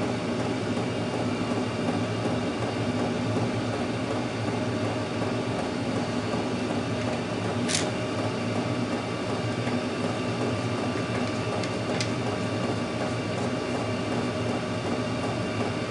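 Steady hum and whirr of a running workshop heater, with two short clicks about eight and twelve seconds in as the plastic cable gland on the motor's terminal box is handled.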